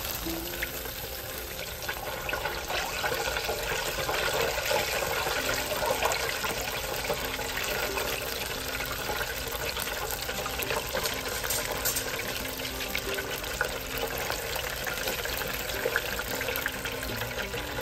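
Chicken wings deep-frying in hot oil in a fryer basket: a steady sizzle with dense crackling that grows a little louder a few seconds in.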